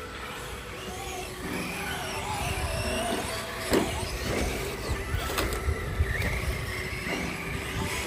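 Electric RC touring cars running on a track, their motor whine rising and falling as the drivers work the throttle. A few short sharp knocks come in the middle.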